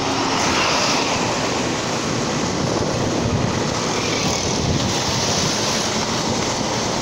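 Steady rush of wind on the microphone over the running noise of the vehicle carrying it and the traffic on the road, heard from a vehicle in motion.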